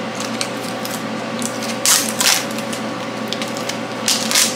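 Hands rustling and crinkling the wrapping on a small spool of welding wire as it is unpacked, with two louder crinkles about two seconds in and near the end, over a steady electrical hum.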